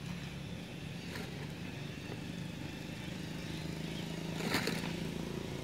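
A vehicle engine running steadily, with a short burst of noise about four and a half seconds in.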